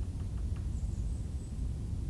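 Outdoor ambience made up mostly of a steady low rumble, with a few faint ticks near the start and a faint, thin, high bird note around the middle.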